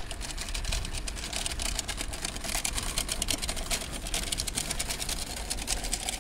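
Loaded wire shopping cart rolling over paving stones: a steady, dense rattle of wheels and basket over a low rumble.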